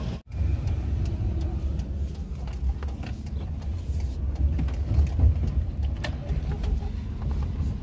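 Low, steady rumble of a Suzuki car's engine and road noise, heard from inside the cabin while driving, with a few faint clicks. The sound cuts out briefly just after the start.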